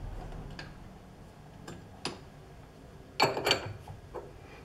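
Scattered sharp metal clicks and taps from a wrench and tool adjusted on a stopped lathe's tool post while setting a cutoff tool square, with a quick cluster of louder ones about three seconds in.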